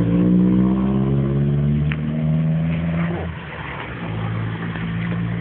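An engine running steadily, its pitch sagging slightly, cutting out briefly a little past the middle and then carrying on.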